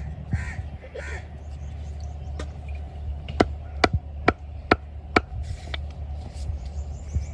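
Crow-like cawing in the first second or so, then five sharp knocks about half a second apart, over a steady low hum.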